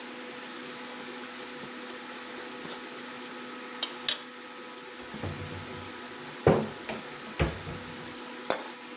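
Metal spoons clinking and knocking against a steel karahi a handful of times, the loudest about six and a half seconds in, over a steady hum.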